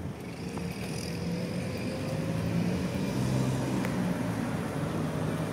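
Road traffic: a motor vehicle's engine running, growing a little louder about two seconds in, with a faint slowly rising whine.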